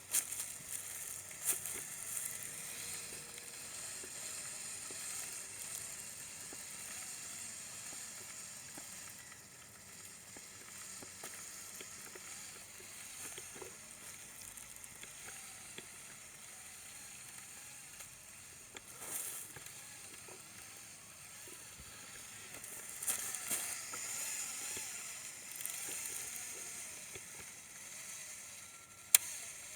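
Lego Technic RC 4x4's electric drive motors and plastic gear train whirring faintly as the model crawls over rough ground, with a steady hiss and scattered clicks and crackles; one sharp click near the end.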